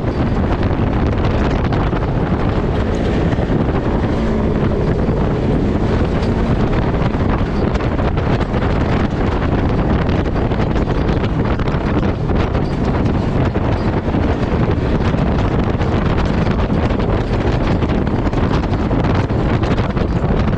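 Polaris RZR side-by-side on the move off-road: steady vehicle noise under heavy wind buffeting on the microphone, with no change in pace.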